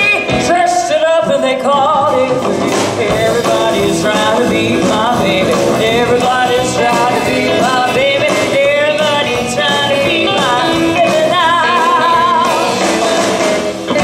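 Live rock and roll band playing: electric guitars, upright bass and drums, with a bending, wavering lead melody over the band.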